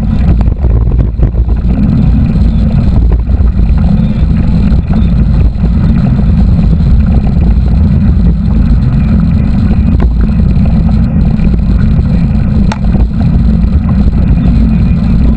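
Loud, steady low rumble of wind buffeting the camera's microphone while riding a mountain bike, with a few faint clicks from the bike.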